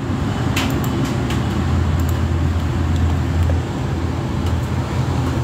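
Low rumble of road traffic that swells for about two seconds in the middle, with a few light clicks.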